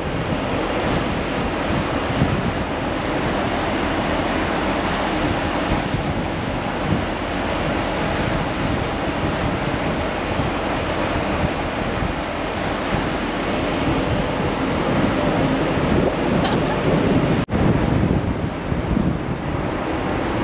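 Wind blowing across the microphone over the rushing wash of a choppy sea, heard from a ferry's open deck: a steady, dense noise that breaks off for an instant about seventeen seconds in.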